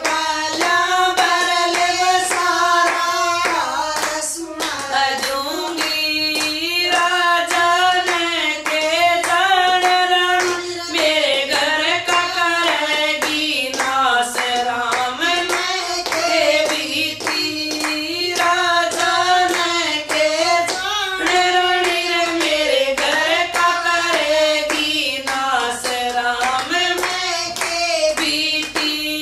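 Women singing a Haryanvi devotional bhajan in a slow, drawn-out melody, kept in time by a steady beat of hand-claps.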